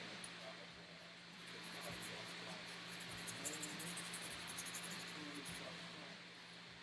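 Paintbrush strokes on watercolour paper: faint, rapid scratchy brushing that comes in about two seconds in and fades out near the end, over a steady low hum.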